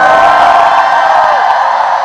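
Concert audience screaming and cheering loudly, with many high-pitched voices at once.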